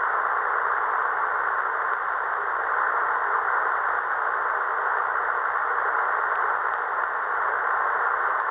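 Tecsun PL-365 shortwave receiver putting out steady, narrow-band static hiss through its speaker, with no station's voice coming through on the frequency.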